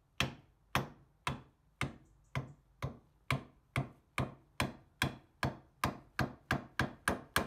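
Soft-headed hammer tapping a steel pin down through a snow-plough frame bracket with a long run of even, sharp blows. It strikes about two times a second at first, quickening to about three a second near the end.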